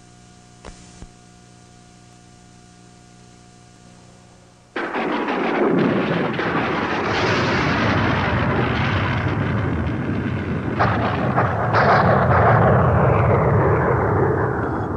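A faint steady hum with two short clicks, then about five seconds in a sudden loud boom that rolls on as a long rumble, with two more sharp cracks near the end before it starts to fade.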